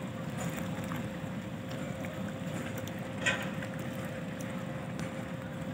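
Steady low rumble and hum of the moored passenger ship Umsini's machinery running, with one brief sharp sound about three seconds in.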